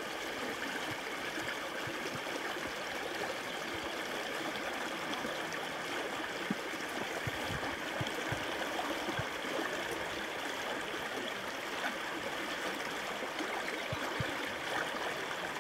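Steady rush of a river stream flowing through and under a log jam, with a few faint knocks scattered through it.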